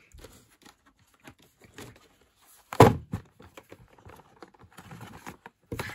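A stack of DVD cases being handled and shuffled together, with light clicks and taps and one loud thunk about three seconds in as the cases are knocked or set down.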